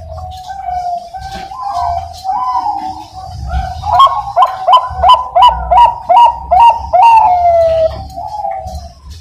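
Bangkok-type zebra dove cooing loudly: a rolling opening coo, then a quick run of about ten clipped, rising-and-falling notes, closing on a long falling coo.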